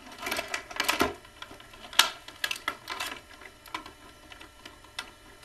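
Action-figure packaging crackling and clicking as the figure is worked loose from what holds it in the package: a dense run of sharp clicks, thinning out later, with one sharp click at the end.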